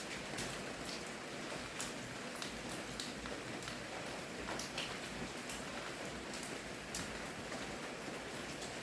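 Steady rain falling, with separate drops striking close by as irregular sharp ticks over the even hiss of the rain.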